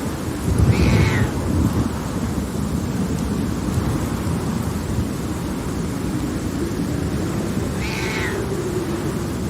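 Steady rain of a thunderstorm, with a low rumble of thunder about a second in, the loudest part. Two short animal cries sound over it, one about a second in and one near the end.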